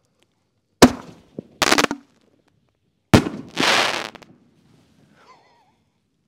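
Five-inch canister firework shells going off. There is a sharp bang about a second in, with a second, longer burst of noise just after it. Then comes another sharp bang about three seconds in, followed by a rushing burst lasting most of a second.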